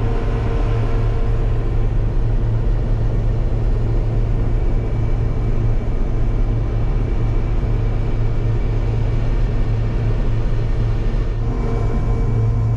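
Peanut combine running steadily as it picks up and threshes windrowed peanuts, heard from inside the cab: a steady low engine and machinery drone with faint steady whining tones above it.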